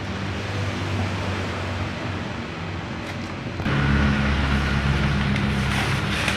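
Motor vehicle engine and road noise running steadily, getting louder about three and a half seconds in as an engine's low hum strengthens.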